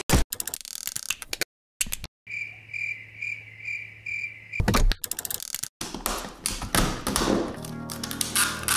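Plastic and metal parts of an old 8 mm camcorder being pried, snapped and clicked apart by hand, in short edited bursts of sharp cracks, clicks and a heavy thump. A steady high tone pulses about twice a second partway through, and background music rises under the clicking near the end.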